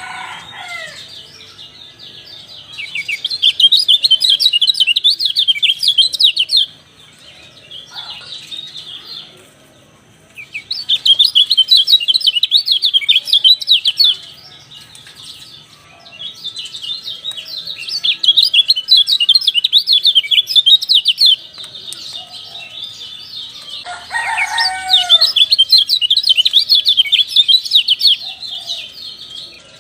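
Kecial dampuk (white-eye) song: rapid, high chattering twitter in four bursts of several seconds each, with short pauses between them. A lower call of curving, falling notes cuts in at the start and again about three-quarters of the way through.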